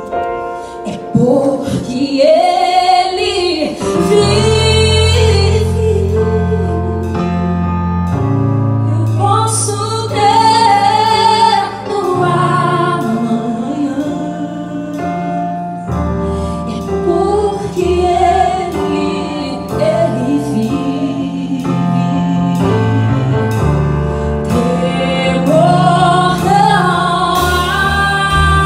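A woman singing a gospel worship song live into a microphone, holding and gliding between long notes, over a live band with held bass notes and drum hits.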